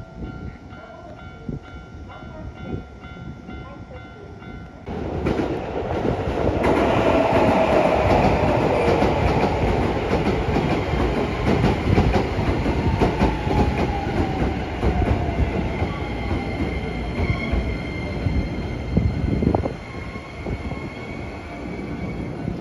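A level-crossing warning bell rings in a steady repeating pattern for the first few seconds. Then a Keisei 3000 series electric train pulls into the platform, its wheels clacking over the rail joints and its motor whine gliding down in pitch as it brakes to a stop.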